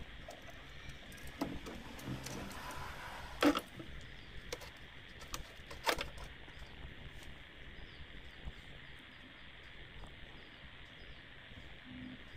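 Handling noise as the gearbox is worked loose from an RC truck's chassis: scattered clicks and knocks of small parts, the two loudest about three and a half and six seconds in, over a faint steady hiss.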